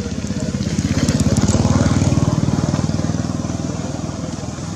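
A small vehicle engine passing by, a fast low pulsing that grows louder to a peak about two seconds in and then fades away.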